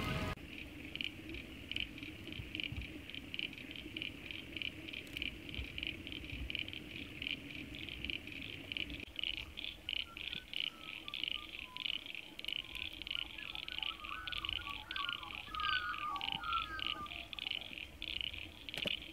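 A chorus of frogs calling in a rapid, even pulse that runs throughout, with short bird chirps joining about halfway through.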